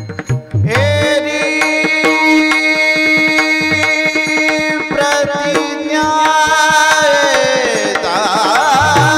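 Marathi devotional bhajan singing: a singer holds one long note for several seconds, breaking into quick wavering ornaments near the end, over a tabla-style hand drum that beats more heavily at the start and end.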